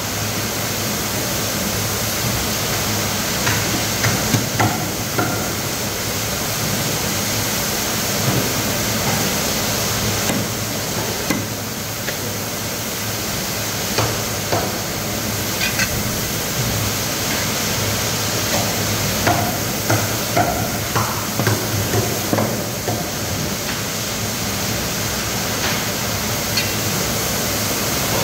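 Scattered knocks and taps of fish steaks and a knife being handled on a wooden chopping block, over a steady rushing background noise with a low hum.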